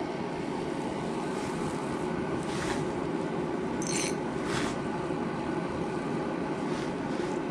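A steady mechanical hum with a few faint ticks a few seconds in.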